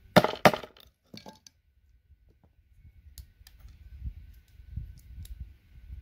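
Two sharp hammer blows on a cold chisel set into a plastic RJ45 ethernet connector, about a third of a second apart, cracking the plastic top off to free the pins, followed by a lighter knock a second in. Faint light clicks follow.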